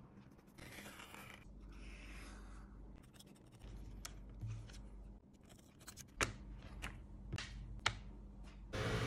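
Leather being cut and handled by hand on a cutting mat: soft scraping in the first few seconds, then scattered small clicks, with three sharp clicks in the second half.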